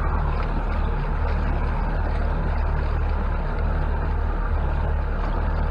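Boat's outboard motor idling along at low speed, a steady low drone.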